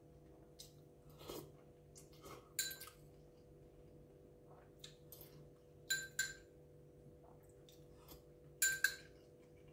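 A metal fork clinking against a ceramic bowl about five times, the clinks coming in close pairs near the middle and end, over the steady hum of a running refrigerator.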